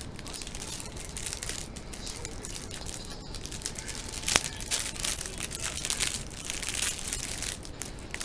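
Plastic bread bag crinkling as it is handled and pulled open, with one sharp snap about four seconds in.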